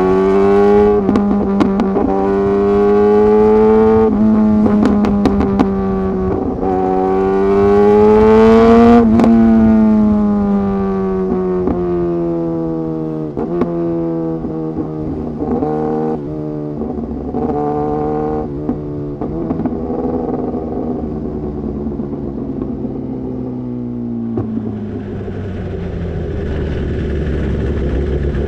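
Sport motorcycle engine accelerating hard, its pitch climbing and then dropping at each gear change, several times over, with short sharp ticks at some of the changes. Near the end it drops to a lower, steadier running note as the bike slows.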